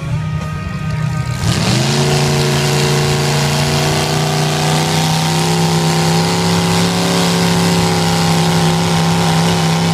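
Old pickup truck's engine revving up sharply about a second and a half in, then held at high revs as the truck pushes through deep mud and water. The tyres churn and splash.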